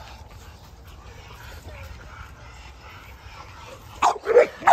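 Pit bull barking: a quick run of loud, sharp barks begins about four seconds in, after a few seconds of only faint background.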